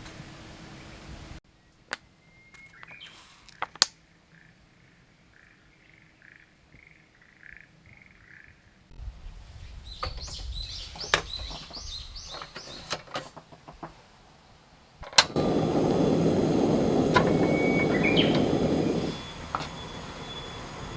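Birds chirping in a quiet forest, with a repeated series of short calls and a few sharp knocks and clicks. About fifteen seconds in, a loud steady rushing hiss starts and lasts about four seconds.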